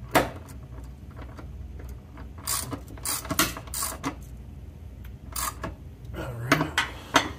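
Metal clicks and short rattling scrapes of a bolt and its hardware being worked by hand up into a car's transmission crossmember, over a low steady hum.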